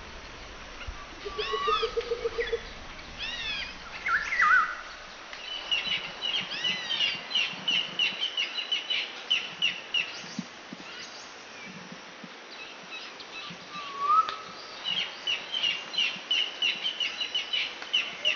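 Wild birds singing: assorted chirps and whistled slides, with two runs of quick, evenly repeated high notes lasting a few seconds each.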